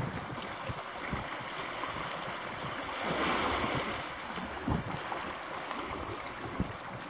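Wind buffeting the microphone in irregular low gusts over a steady rush of water, swelling louder about three seconds in.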